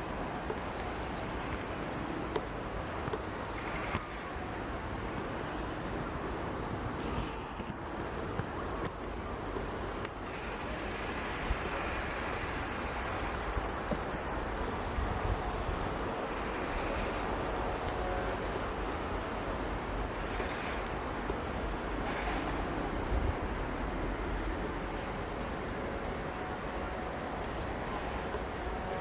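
Insects trilling: one steady high-pitched trill, with a second, higher trill that switches on and off about every second and a half, over a steady background hiss.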